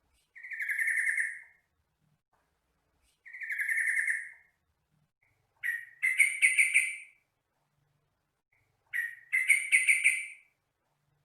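A trucukan (yellow-vented bulbul) singing: two buzzy, rattling phrases about a second long, then two bursts of quick chattering notes.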